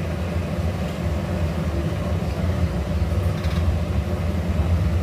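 Steady low rumble with a faint hum above it, even in level throughout.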